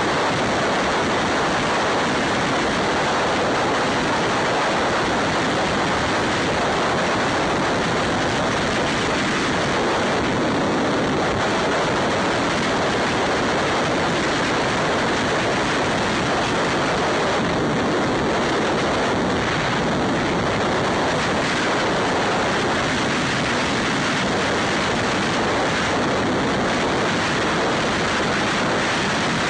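Steady rush of wind over the microphone of a camera mounted on a Ducati Scrambler motorcycle riding at highway speed, blended with road noise; no clear engine note stands out.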